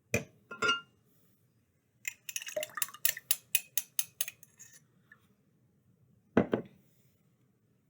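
Kitchen utensils and dishes clinking: two clinks at the start, one with a short ring, then a quick run of about a dozen light taps, and a single louder knock near the end.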